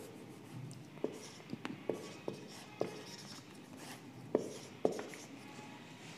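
Felt-tip marker writing on a whiteboard: a string of short, sharp taps and strokes as figures are written, about eight of them between one and five seconds in.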